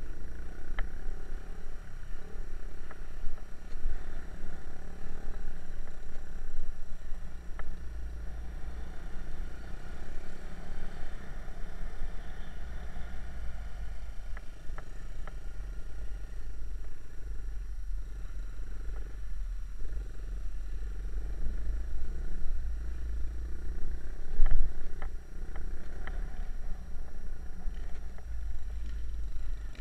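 Small trail motorbike engines running steadily on a dirt track, with a heavy low rumble of wind on the microphone. A few short sharp knocks come through, the loudest one about three-quarters of the way in.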